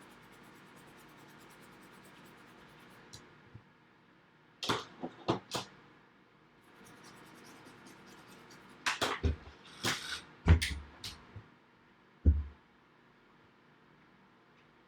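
A toothbrush scrubbing flux off a freshly soldered iPad charging port, in two short runs of scratchy brushing strokes, followed by a single light knock.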